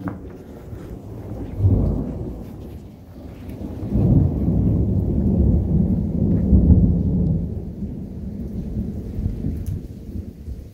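Rolling thunder: a first rumble about two seconds in, then a longer, louder rumble from about four seconds in that slowly fades away.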